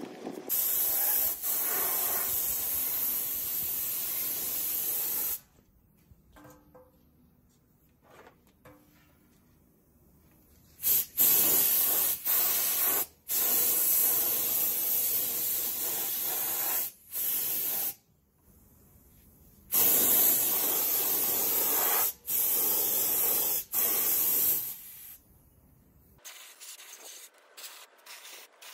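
Gravity-feed compressed-air spray gun spraying paint, its air hiss starting and stopping with each trigger pull. There is one long pull of about five seconds, then after a pause a run of shorter pulls of one to three seconds with brief breaks. It stops a couple of seconds before the end.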